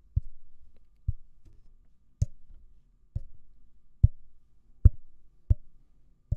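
Fingertip taps on the body of a Rode NT2-A large-diaphragm condenser microphone, heard through the microphone itself: about eight short knocks, roughly one a second. The tapping tests the mic body for resonant frequencies.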